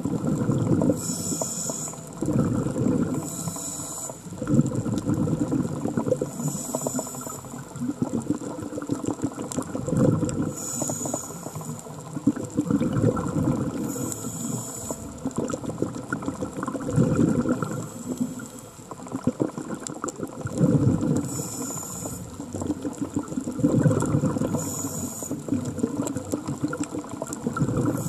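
Underwater breathing through a diver's regulator: a hissing inhalation every few seconds, each followed by a longer bubbling, gurgling rush of exhaled air.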